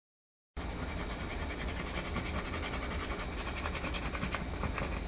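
Scratch-off card being scratched: quick, repeated scraping strokes across the card's coating, starting about half a second in.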